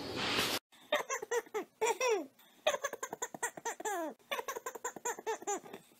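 A young child laughing in a run of short giggles, each one falling in pitch, several a second with brief gaps between them, starting about half a second in.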